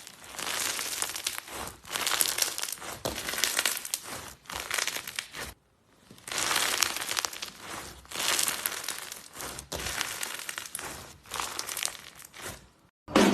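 Slime being squeezed and worked by hand, crackling and crinkling in repeated bursts; it cuts out briefly about halfway through and again just before the end.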